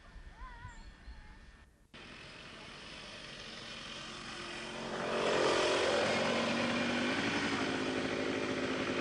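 A small engine running, growing louder after a brief dropout about two seconds in and holding a steady, loud drone from about five seconds on. This is the kind of engine that drives a coursing lure machine.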